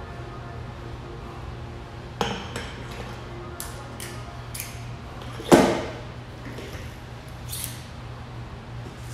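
Barbell collar and bumper plates handled on a steel barbell sleeve: a run of irregular metal clinks and clanks, the loudest about halfway through.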